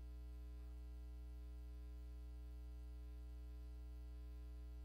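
Steady low electrical mains hum with a faint buzz above it, unbroken through a pause in speech: hum picked up by the recording or sound system.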